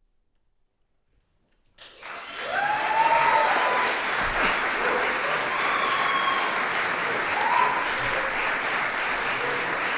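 Near silence for about two seconds, then an audience starts applauding and keeps on steadily, with a few whoops heard over the clapping.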